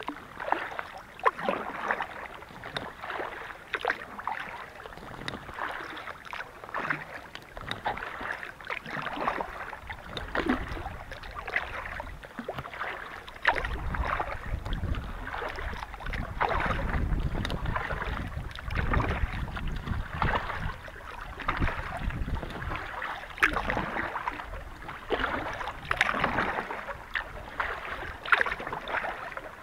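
Kayak paddle strokes in calm water: repeated dips and splashes with dripping between them, about one a second. A low rumble joins in for several seconds in the middle.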